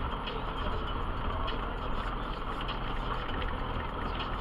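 Jeep Wrangler Rubicon engine running steadily at low speed as it crawls over a rocky gravel trail, heard from inside the cab, with small irregular clicks and rattles from the rough ground.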